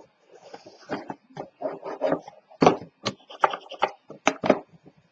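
A bone folder rubbed in quick, short strokes over cardstock edges, pressing paper strips flat: a string of irregular scraping and rubbing sounds.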